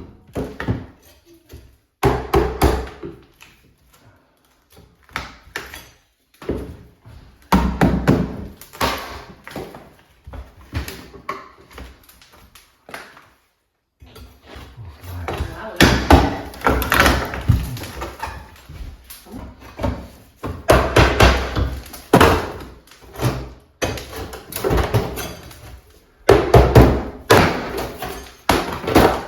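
Hand demolition with a hammer: irregular bursts of blows and knocks with short pauses between, as trim and metal cladding are knocked loose, with a fast run of strikes a few times.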